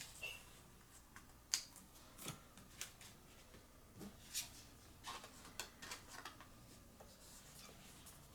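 Trading cards being slid into plastic card sleeves: faint, scattered rustles and small clicks, with one sharper click about a second and a half in.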